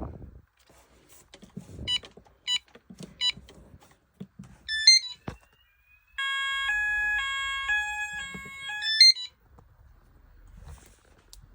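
Electronic alarm under test: three short beeps, then a rapid chirp, then about three seconds of a loud warning tone stepping between several pitches, with faint handling knocks between the sounds.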